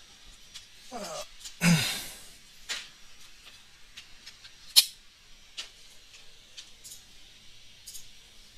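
Two short wordless vocal sounds, each falling in pitch, the second louder, followed by a few scattered sharp clicks, the strongest about five seconds in.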